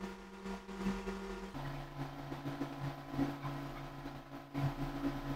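Faint low steady hum whose pitch drops about a second and a half in, with light handling sounds of yarn being knotted by hand.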